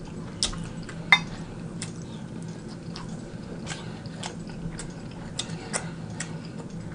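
Close-miked chewing of a mouthful of scrambled eggs, with scattered soft mouth clicks and a fork clinking on the plate, the sharpest click about a second in. A faint steady hum lies underneath.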